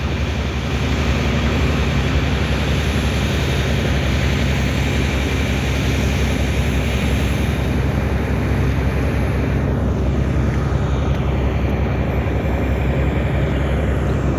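A boat's engine running steadily under way, a constant low drone, mixed with an even rush of water and wind.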